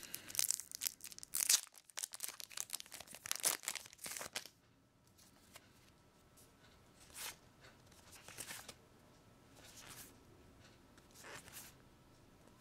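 Plastic booster-pack wrapper being torn open and crinkled by hand, a dense crackling for the first four and a half seconds. After that come a few soft, brief swishes of trading cards being slid through the hands.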